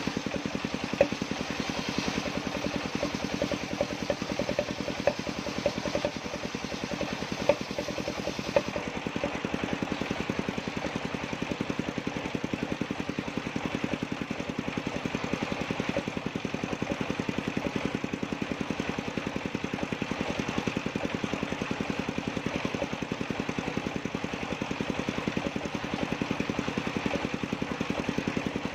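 Engine-driven portable circular sawmill running steadily while cutting a jackfruit heartwood beam, a drone with a fast even pulse. A few sharp clicks sound in the first eight seconds, and the higher hiss thins out about nine seconds in.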